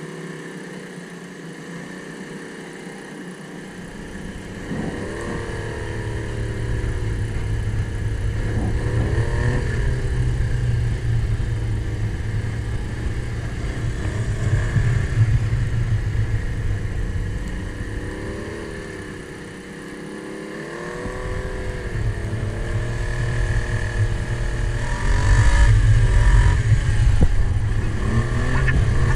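Snowmobile engine revving up and down over and over as it rides, heard close from the rider's seat, with heavy wind rumble on the microphone that drops out briefly about two-thirds of the way through.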